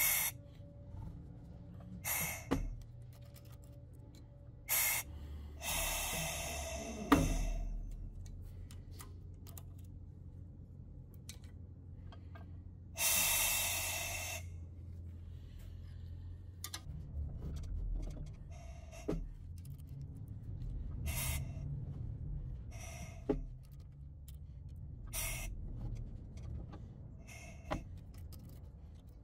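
Valve spring compressor working along a diesel cylinder head: short hisses of air every couple of seconds, two of them longer, with light metal clicks from the keepers and springs coming off. A low steady hum runs underneath.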